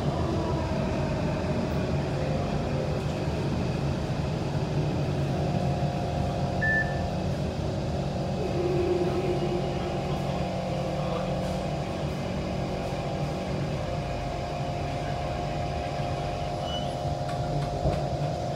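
Inside an SMRT C151 metro car with permanent-magnet synchronous traction motors: a steady running rumble under a steady electronic whine from the traction motors and inverters, whose pitch shifts about three-quarters of the way through as the train slows into a station.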